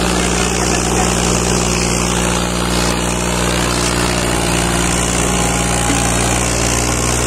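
John Deere 5039 D tractor's three-cylinder diesel engine running hard at a steady pitch, under heavy load as it drags a chained disc harrow through loose soil.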